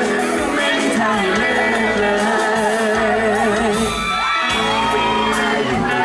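Live pop song played by a band: singing over electric guitar and bass guitar, with whoops from the crowd.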